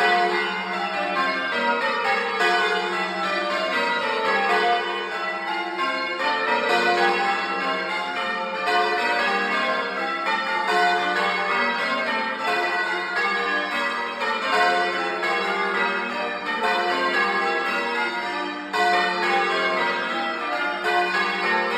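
A ring of church bells being change rung, heard close up inside the belfry: a loud, continuous run of struck bells sounding one after another in shifting orders, each tone ringing on into the next.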